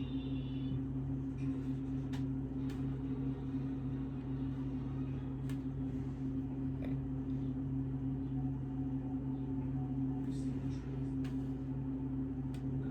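A steady low hum with a few faint, light clicks scattered through it.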